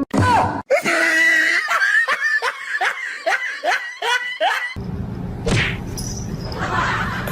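A person laughing hard in a quick run of rising, high cries. About two thirds of the way in, this gives way to a steady low rumble.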